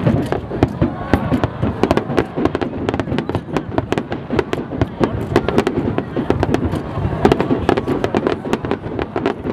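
Aerial fireworks display: many shells bursting in quick succession, a continuous run of sharp bangs several per second over a low rumble.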